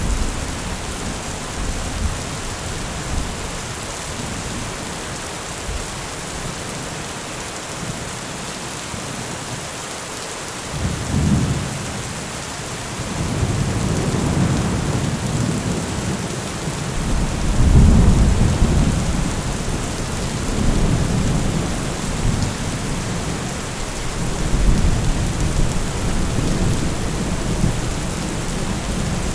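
Heavy rain falling steadily on a metal roof, a constant hiss. Low rolls of thunder start about a third of the way in and come in several swelling and fading waves, the loudest just past the middle.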